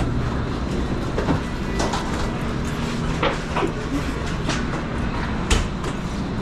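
Pizzeria kitchen working noise: a steady low machine drone with scattered clicks and clatter of utensils and pans, and one sharper knock about five and a half seconds in.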